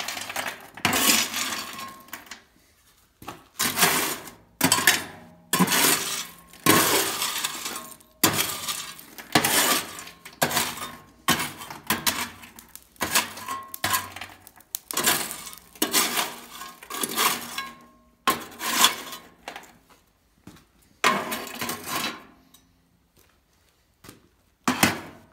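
Steel shovel scraping and scooping lumps of coal in a steel forge pan, the coal clattering and clinking, in about fifteen separate strokes roughly a second apart that stop a few seconds before the end, then one more. The coal is being piled over the forge fire to smother it.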